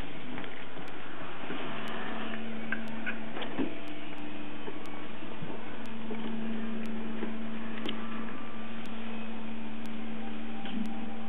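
A steady low hum over even hiss, with faint ticks about once a second. No crying is heard: the infant is silent during the breath-holding, open-mouthed onset of a reflex anoxic seizure.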